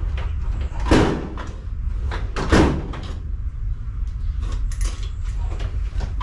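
A metal tool-chest drawer sliding open and shut: two loud rattling strokes about a second and a half apart, with lighter clicks and a steady low hum underneath.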